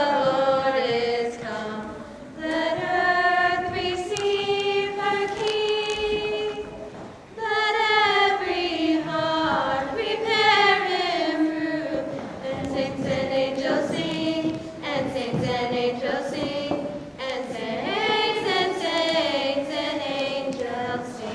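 A small group of girls and women singing together in sustained, held phrases, with short breaks between phrases.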